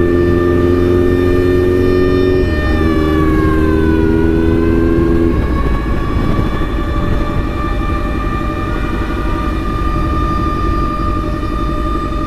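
An emergency-vehicle siren holds a steady high electronic tone. It dips in pitch about three seconds in and then climbs back. Underneath are motorcycle engine and traffic noise; a low engine note drops out about five seconds in, leaving road rumble.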